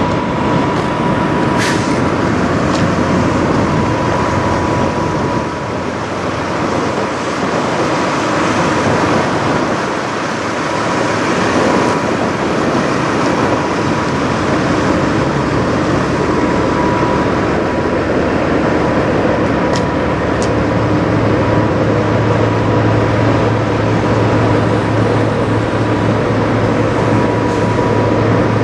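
Steady rumble of idling diesel semi-truck engines, with a thin high whine over it and a deeper hum that joins about two-thirds of the way in.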